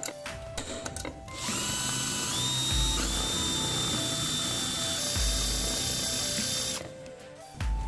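A few sharp clicks in the first second from an automatic center punch marking the aluminium pan, then an electric drill running for about five seconds as its bit bores into the aluminium, its whine stepping up in pitch as it spins up, cutting off near the end.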